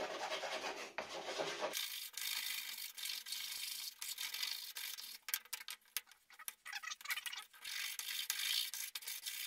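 Quick back-and-forth hand scraping and rubbing on small pieces of wood as the glued-on paper template is worked off, with light clicks and taps of the tool in the second half.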